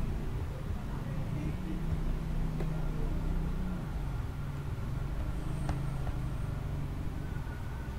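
Steady low background rumble, with a single faint click about six seconds in.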